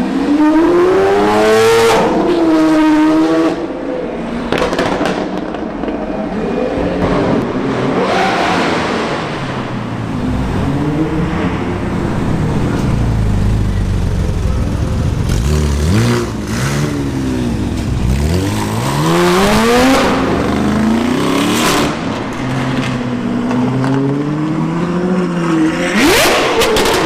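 High-performance car engines revving and accelerating hard, the pitch climbing and then dropping at gear changes, in several separate clips one after another, with a deep low rumble near the middle.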